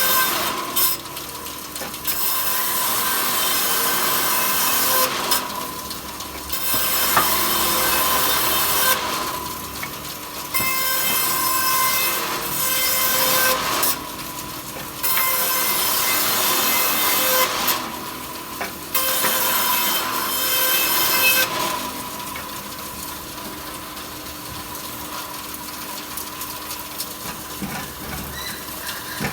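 Power saw cutting wood into thin slats in repeated passes, with several loud cuts of a few seconds each. The motor runs steadily between cuts and goes on running without cutting for the last few seconds.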